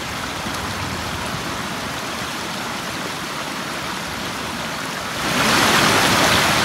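Small mountain stream cascading over rocks, with a steady rush of water that gets louder and brighter about five seconds in.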